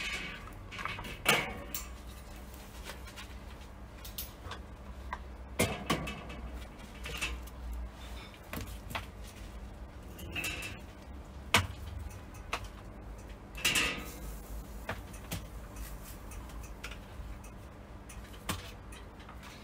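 Irregular clicks and clinks of metal tongs against a kettle smoker's grill grate and a metal tray as the smoked joints are lifted off, over a low steady rumble.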